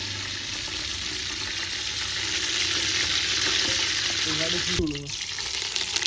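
Hot palm oil sizzling as cumin, fenugreek and mustard seeds go in for the tempering: a steady frying hiss. The hiss cuts out briefly about five seconds in and comes back crackling.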